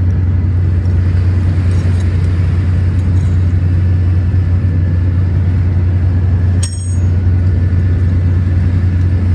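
Steady low drone of running machinery aboard a trawler, with a short click about two-thirds of the way through.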